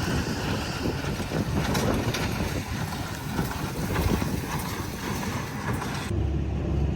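Tractor and small square baler running in the field, a loud steady mechanical noise with wind on the microphone. About six seconds in it cuts to a quieter, steady low engine hum.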